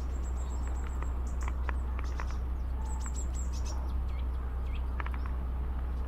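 Small birds chirping at a backyard feeder: many short, scattered chirps, two thin high whistled notes, and a few calls that slide downward. All of it sits over a steady low hum.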